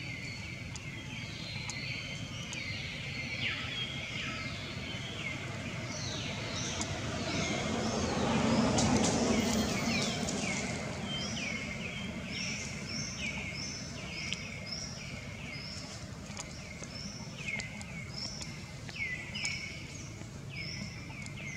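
Small birds chirping in a steady run of short, quickly falling chirps, several a second. A low rumble swells and fades around the middle.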